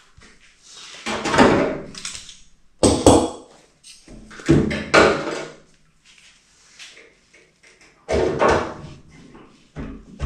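Hand rivet puller setting CCP-42 blind rivets in an aluminium rudder hinge: about five clunks and sharp snaps a second or two apart as the handles are squeezed and each rivet's mandrel breaks off.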